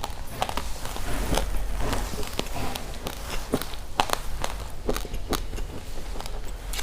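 Close-miked chewing of raw, uncooked rice grains: many sharp, irregular crunches and cracks as the hard grains break between the teeth, over a steady low hum.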